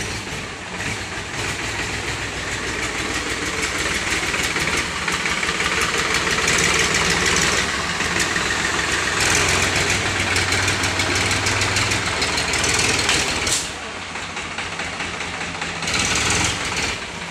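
Powertrac 439 tractor's diesel engine running with a dense, steady clatter, pulling a loaded sand trailer. The revs build through the middle, drop back abruptly about three-quarters of the way through, and rise again briefly near the end.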